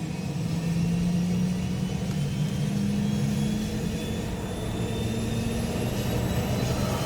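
Pratt & Whitney PT6A turboprop on a Cessna 425 Conquest spooling up during its start, just after fuel is introduced on the starter: a rising turbine whine over a deep hum as the gas generator accelerates toward starter cut-out.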